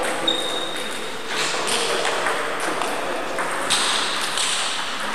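Sports-hall ambience with a steady high hiss, and a short, thin, high ringing tone that starts about a quarter second in and lasts under a second.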